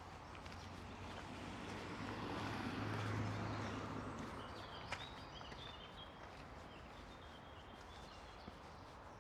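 Outdoor park ambience: a low rumble swells to a peak about three seconds in and fades away, while small birds chirp, with one sharp click near the middle.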